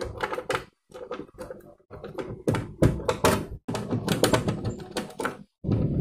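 Clicking and clattering of hard plastic parts and a screwdriver as a two-tub washing machine's control panel and timer selector housing are fitted back together and screwed down.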